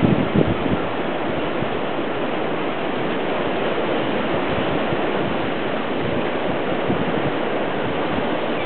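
North Sea surf washing over and between shoreline rocks: a steady, unbroken rush of breaking water.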